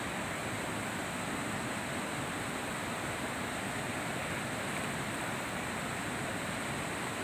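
Steady rushing of flowing water: an even hiss with no breaks and no single events.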